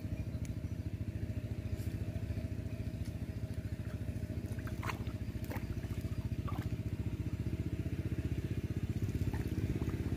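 A small engine running steadily at an even idle, with a few faint splashes of water about halfway through.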